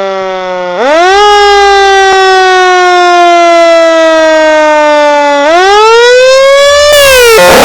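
Sterling Model 30 Siren-Lite fire truck siren wailing. Its pitch jumps up quickly about a second in, sags slowly for several seconds, then rises again near the end.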